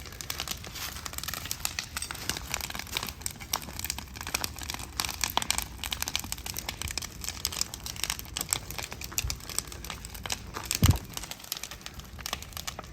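Burn pile of demolished cabin wood crackling and popping in a dense, irregular stream, with one louder low knock about eleven seconds in.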